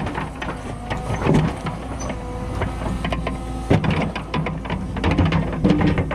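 Cat 314E excavator's diesel engine running steadily under hydraulic load, with repeated clanks and knocks from the bucket and machine working rock and mud; the sharpest knock comes a little past halfway.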